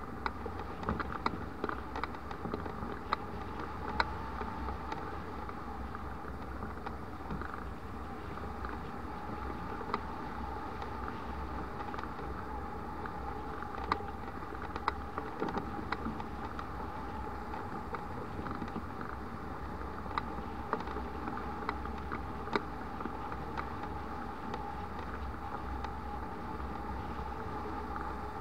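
Airflow rushing past a hang glider in flight and buffeting the microphone, with a steady mid-pitched hum and scattered light ticks.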